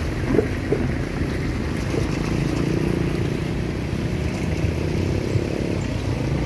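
Loaded container freight train rolling away down the track: a steady low rumble of the wagons, with two short squeaks under a second in.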